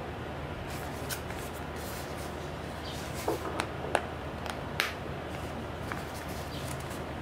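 Small cardboard retail box handled and turned over in the hands: light rustling of the card, with a few sharp clicks and taps around the middle, over a steady low hum.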